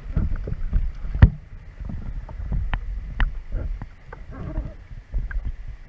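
Water sloshing and lapping against a capsized, swamped canoe, with irregular knocks and clunks on its hull. The loudest is a sharp knock a little over a second in.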